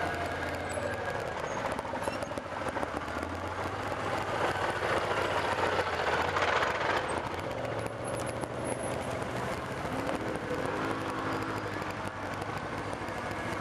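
Engines of quad bikes and side-by-side UTVs driving along a dirt trail, a continuous drone that swells about six seconds in. An engine revs briefly up and back down near ten seconds.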